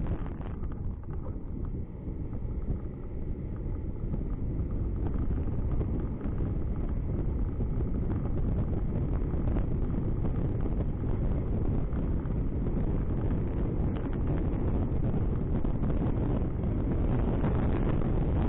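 Car driving along a road: low rumble of the car and tyres under steady wind buffeting the microphone, dipping a little about a second in and picking up again.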